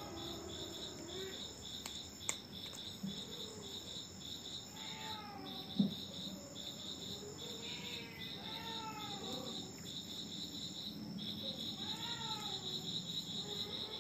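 Crickets chirping in a steady, fast pulsing trill, with a couple of soft knocks.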